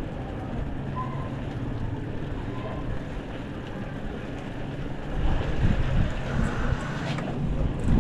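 Low steady rumble of a motor vehicle engine under wind buffeting the microphone during a street bicycle ride, growing louder from about five seconds in.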